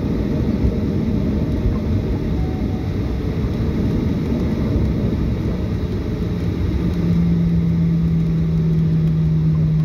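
Cabin noise inside a Boeing 737-800 rolling on the ground after landing: a steady low rumble of engines and wheels. A steady low hum comes in about six seconds in and holds.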